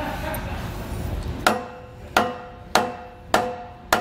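Dead-blow mallet striking a steel tow-bar base plate five times, about every 0.6 s, starting about a second and a half in. Each blow is a sharp knock with a short metallic ring, driving the tight-fitting plate into place against the frame rails.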